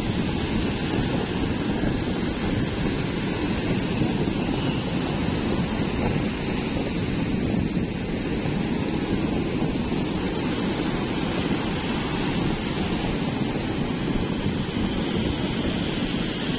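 Ocean surf: waves breaking offshore and washing up over a sandy beach in a steady rush, with wind rumbling on the microphone.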